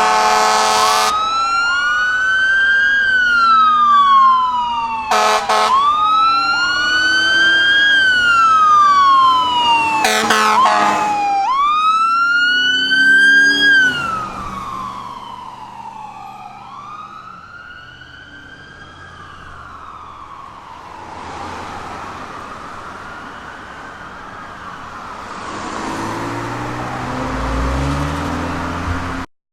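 Fire truck and ambulance sirens wailing, sweeping slowly up and down, broken by three short horn blasts in the first half. The sirens fade after about halfway as the vehicles move off, and an engine grows louder near the end before the sound cuts off suddenly.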